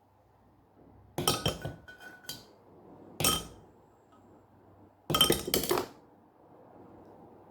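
Small hard objects clinking and knocking together in three quick clusters, about a second in, near the middle and past halfway, with a brief faint ringing after the first cluster.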